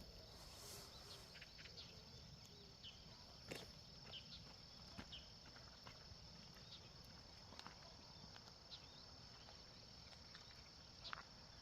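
Faint countryside ambience: a steady high-pitched insect trill, like crickets, runs throughout, with scattered short bird chirps over a low background rumble.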